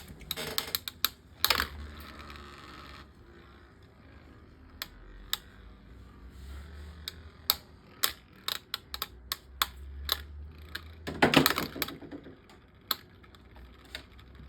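Small plastic Beyblade Micros spinning tops clacking against each other and the stadium walls: an irregular run of sharp clicks, with a louder clatter about eleven seconds in.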